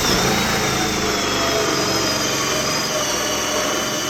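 Power drill turning a 2-inch hole saw, running steadily at speed as it cuts into a door, with a high whine.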